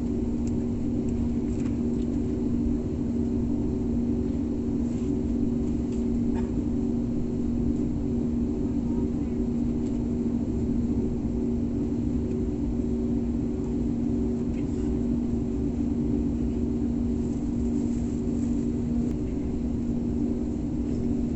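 Steady drone of a jet airliner heard from inside the passenger cabin: an even hiss with a low hum holding a couple of steady pitches, unchanging throughout.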